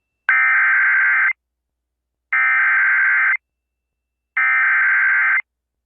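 Emergency Alert System SAME header: three bursts of warbling digital data tones, each about a second long and about a second apart. They encode the coming alert, a severe thunderstorm warning.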